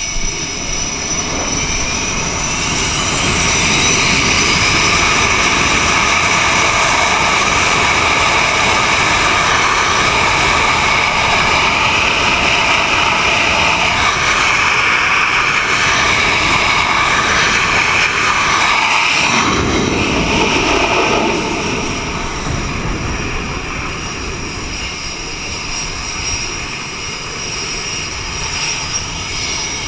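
An F/A-18 Hornet's twin jet engines spool up on the catapult with a rising whine, then hold at full power, loud and steady. About two-thirds through, the catapult fires and the jet noise falls away as the aircraft launches, leaving lower jet noise from the deck.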